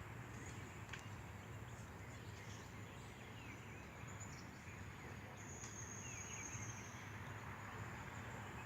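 Faint outdoor ambience with a few soft, short bird chirps, and a thin high trill lasting about a second, a little past halfway.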